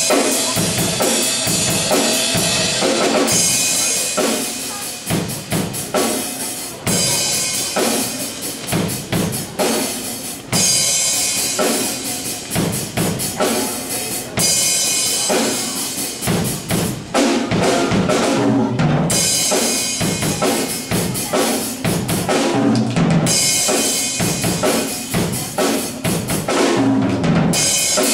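A DW drum kit played in a drum solo, with bass drum, snare and cymbal crashes in a steady, busy beat. The cymbal wash drops out and comes back every few seconds as the pattern changes.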